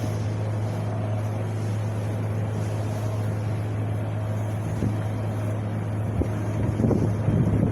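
Wind blowing steadily with a deep low rumble, swelling in a few stronger gusts near the end.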